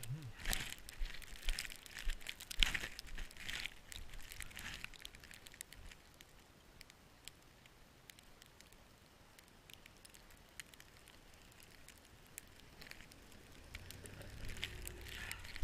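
Crunching in deep snow, about once a second for the first few seconds, then fading to faint. A low rumble builds near the end.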